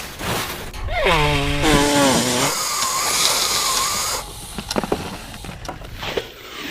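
Cartoon vocal sound effect: a long pitched cry that falls steeply about a second in, then a wavering tone with a hiss, then a few light clicks.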